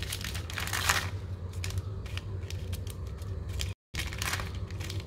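Plastic sheet crinkling and crackling in irregular clicks as drying sago vadams are handled and turned over on it, over a low steady hum; the sound drops out completely for a moment near four seconds in.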